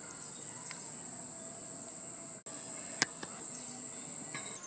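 Insects trilling outdoors: a steady, high-pitched continuous drone, broken by a brief gap about two and a half seconds in, with a single click near three seconds.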